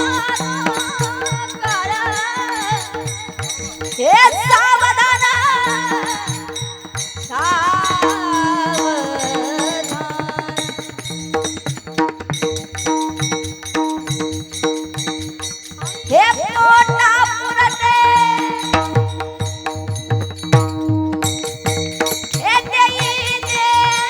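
Devotional kirtan music: a high voice holds long, wavering sung notes over a steady drone, with small hand cymbals and a drum keeping the beat. Three times the voice swoops up into a new long note.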